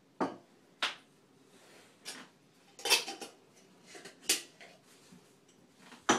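Small glass jars and lids clinking and knocking as they are picked up and set down on a wooden cupboard shelf: about half a dozen sharp, irregular clinks, the loudest about three seconds in.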